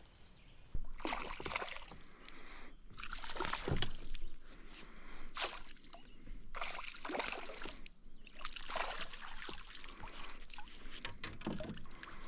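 Water splashing and sloshing in irregular bursts as a hooked smallmouth bass thrashes at the surface beside a kayak and a landing net is dipped in and lifted out of the water.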